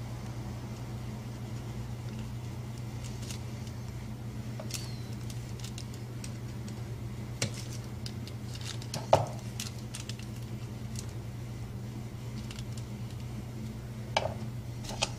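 Small repair tools and phone parts clicking and tapping on a work surface, with scattered sharp clicks and the loudest about nine seconds in. A steady low hum runs under them.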